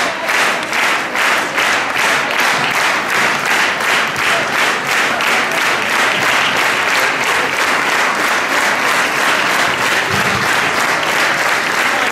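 A large audience clapping in unison to a steady beat of about three claps a second. The beat loosens into more general applause in the middle and comes back together near the end.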